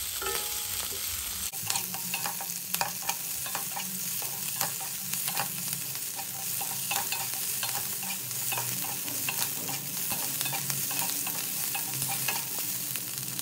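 Chopped capsicum and onion sizzling in hot oil in a nonstick kadhai on a medium flame, while a spatula stirs and tosses them continuously, with frequent short scrapes and knocks against the pan.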